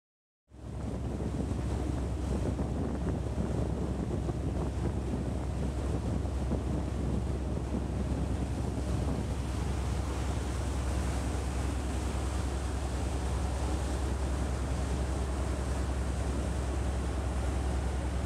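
Wind buffeting the microphone over the rush of sea water and a steady low drone of boat engines. The sound cuts in suddenly about half a second in, then holds steady.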